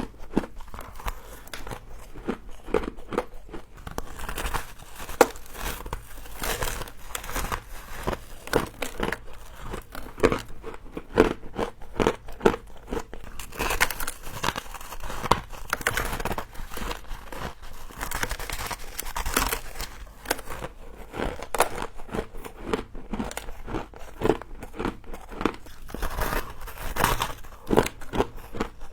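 Humidifier frost being bitten and chewed close to the microphone: a rapid, irregular run of crisp crunches and crackles with no break.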